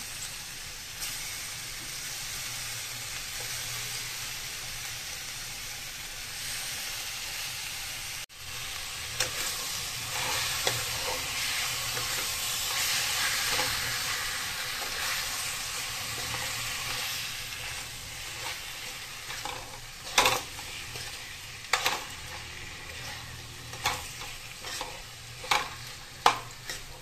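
Raw chicken pieces and spiced onions sizzling in a hot oiled pan while being stirred, the sizzle loudest about halfway through. In the last few seconds the steel spoon knocks sharply against the pan several times.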